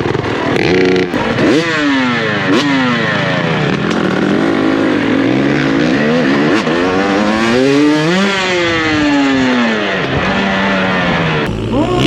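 Freestyle motocross bike engines revving hard, the pitch climbing and falling several times.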